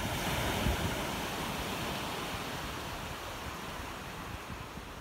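Sea waves breaking on a shingle beach: a wave crashes just as the sound begins, and its wash hisses and slowly dies away. Wind buffets the microphone underneath.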